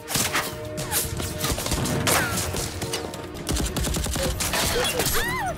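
Rapid automatic gunfire from an AK-style assault rifle, many shots in quick succession, with film music underneath.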